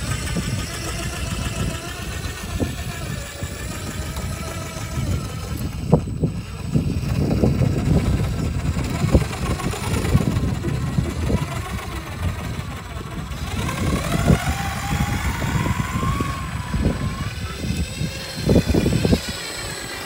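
Scale RC rock crawler working over rock: a whine from its electric motor and gears rises in pitch about two-thirds of the way through, over heavy low rumble and buffeting of wind on the microphone, with scattered knocks of the tyres and chassis on the rock.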